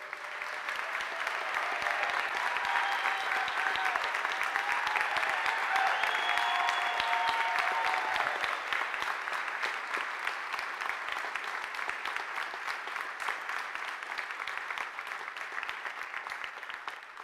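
A large audience applauding, swelling quickly at the start, holding steady, and tapering off near the end.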